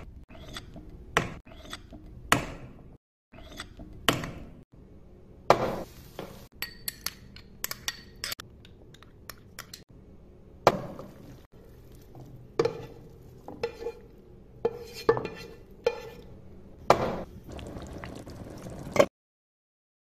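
Kitchen cooking sounds: a metal spoon clinking and scraping against a small glass bowl and a frying pan in many separate clinks, with a couple of short stretches of sizzling.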